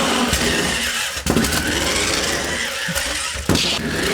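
Small electric motors and gearboxes of a toy four-wheel-drive RC stunt car whirring steadily as it is driven to spin in place, with a few sharp knocks.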